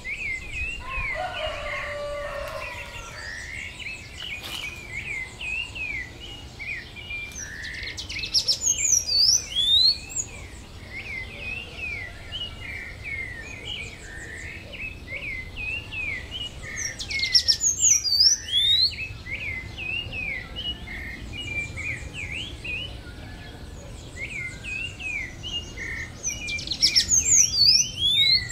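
Small birds chirping steadily in a busy chorus of short notes. Three times, about nine seconds apart, a louder song of quick high sweeping whistles rises over the chirping.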